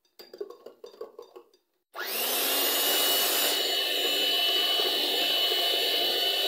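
Electric hand mixer running, its beaters whipping cream and strawberry purée in a bowl: a steady motor whine that starts suddenly about two seconds in. Before it come a few faint knocks.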